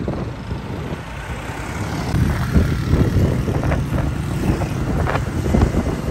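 Rumble of a moving road vehicle, growing louder about two seconds in, with a few short sharp clicks or knocks over it.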